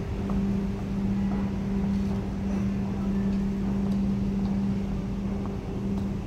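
ÖBB class 4020 electric multiple unit standing still, its onboard equipment humming steadily in one constant low tone.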